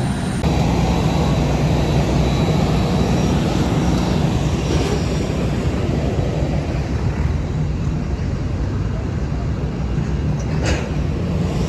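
Airbus A320 airliner running: a steady low rumble, with a brief click about eleven seconds in.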